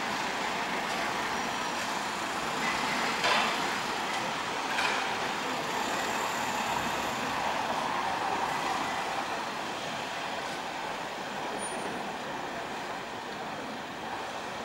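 City street traffic: vans and cars moving slowly past, a steady mix of engine and tyre noise, with two short knocks about three and five seconds in.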